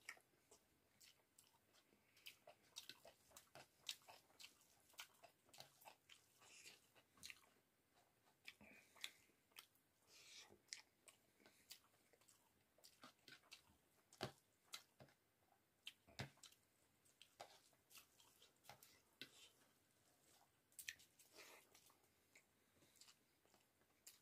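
Faint, close chewing of rice and cauliflower-and-potato curry eaten by hand. Wet mouth clicks and smacks come irregularly, a few each second.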